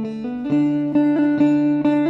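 Background music: plucked guitar playing a melody over a steady low note.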